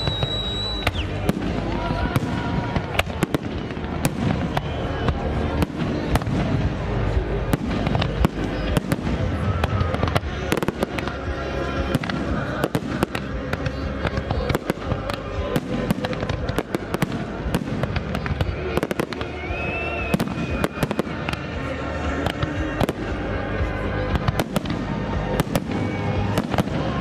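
Fireworks display: a dense, continuous barrage of aerial shell bursts and crackling, several bangs a second with no let-up.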